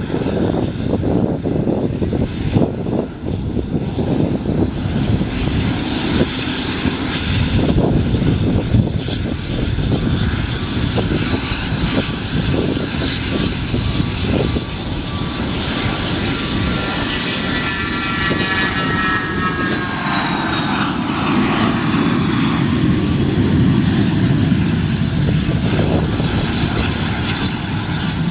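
Aircraft engines running close by: a steady loud rumble, with a high whine that slides down in pitch over several seconds about halfway through as the plane goes past.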